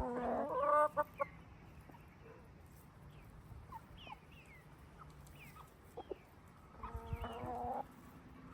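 Chickens clucking: a drawn-out hen call at the start and another about seven seconds in, with short high chirps scattered in between.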